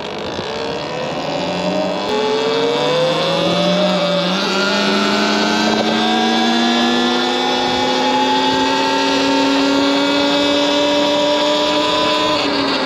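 Electric bike motor whining as the bike accelerates: one pitched whine climbing steadily over several seconds, then holding level and easing down slightly near the end.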